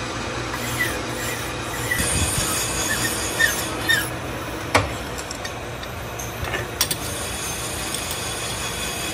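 Lathe running steadily while a hand file is held against the spinning cast-iron brake disc, giving short squeaky scrapes. A sharp metallic knock comes about halfway through and a few clicks a couple of seconds later.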